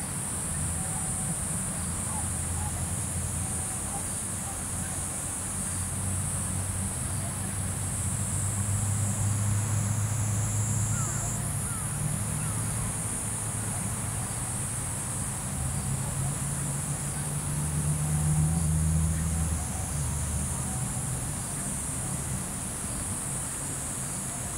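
A steady, high-pitched chorus of evening insects, with a low engine hum underneath that swells twice, like distant traffic or an aircraft, and a few faint bird chirps.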